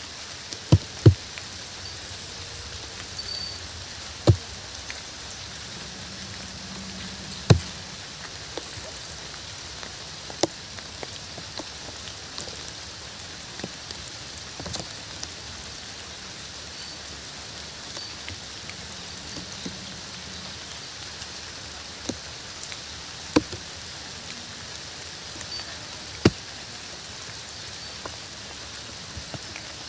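Steady rainfall, a constant even hiss, with single heavy drops landing close by every few seconds as sharp, loud taps.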